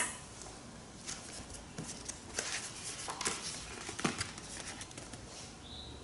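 Faint clicks and rustles of a hardcover picture book being handled and opened to its first pages. A brief, faint high squeak comes near the end.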